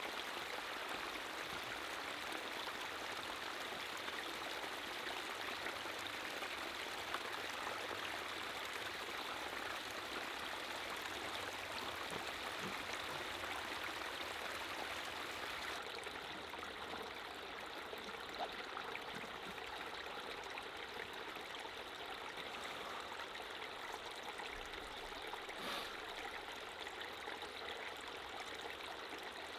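Small rocky woodland creek trickling and babbling steadily over stones.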